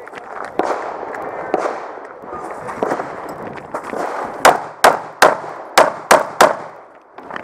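A Walther PPQ pistol fired six times in quick succession, about two seconds in all, as the competitor engages the targets.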